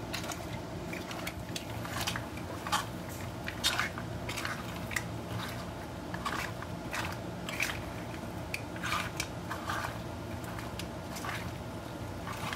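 Silicone spatula stirring shrimp and mussels in a hot enamelled pot: irregular scrapes and shell clatters over a steady sizzle, with a low hum underneath.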